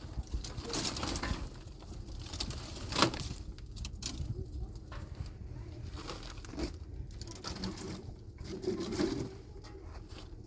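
Scattered knocks and light clatter, with one sharp knock about three seconds in, and birds cooing in the background.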